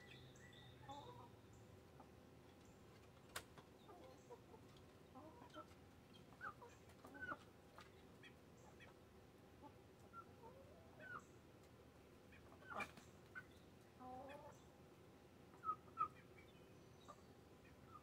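Chickens clucking softly, a scattering of short calls with quick pitch bends, and two sharper calls near the end. A single sharp click about three seconds in.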